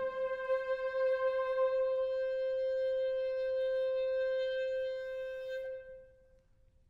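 A clarinet holding one long note that slowly fades and stops about six seconds in.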